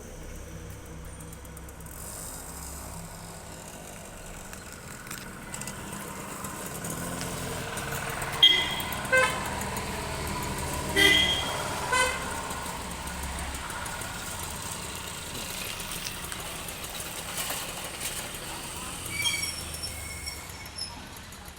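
Steady background traffic noise with a few short horn toots: two about eight seconds in, two more a few seconds later, and fainter ones near the end.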